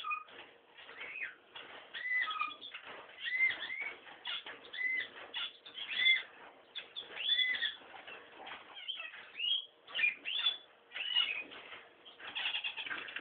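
Young owl calling in a series of short, arched squeaky calls, repeated about once a second, with scattered sharp clicks between them.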